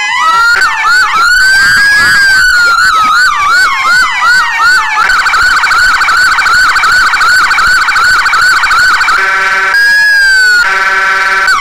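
Whelen siren system on a Ford Crown Victoria Police Interceptor sounding two tones at once through its two front-bumper speakers: a slow wail rising and falling under a rapid yelp, then the rapid yelp alone at about four sweeps a second. Near the end it switches to a steady buzzing tone, broken briefly once.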